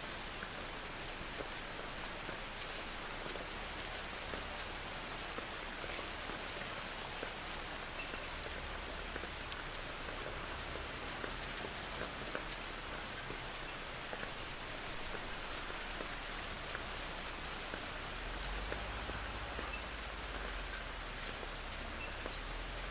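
Steady rain falling, an even hiss with many small drop ticks. A low rumble of distant thunder swells in the last few seconds.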